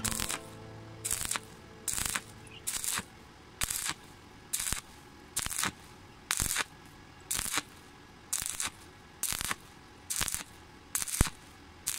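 Stick-welding arc on thin sheet steel, crackling in short sizzling bursts about once a second as the electrode is worked in an on-off rhythm. Faint background music runs underneath.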